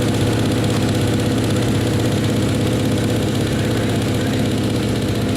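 KTM motocross bike engine running steadily at idle, holding an even pitch.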